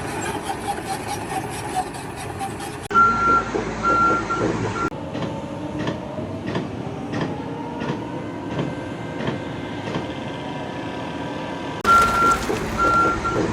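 Reversing alarm on a construction vehicle beeping about twice a second over engine and site noise. It stops about 5 s in and starts again near the end.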